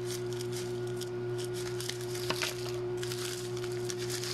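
Plastic packaging crinkling and crackling in the hands as a package is opened, over a steady electrical hum.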